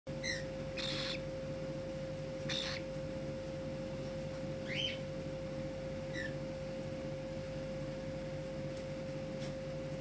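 Cockatiels giving a few short chirps, one of them rising, and two brief raspy calls, over a steady faint electrical tone in the room.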